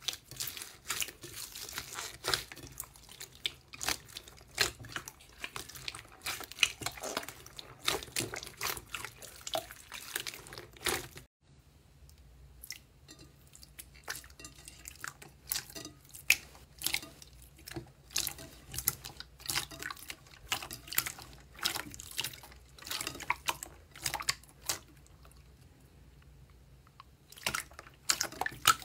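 Hands squishing slime in a glass bowl. First, clear slime full of foam beads gives dense sticky crackling and clicking. After a cut about a third of the way in, a runnier pink clear 'fake water' slime gives sparser wet clicks and pops.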